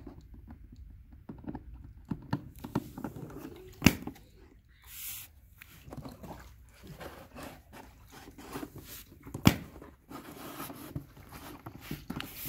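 Labrador retriever puppy gnawing on the rim of a plastic bucket: scattered clicks and scrapes of teeth on plastic, with two sharp, loud knocks about four seconds in and again about nine and a half seconds in.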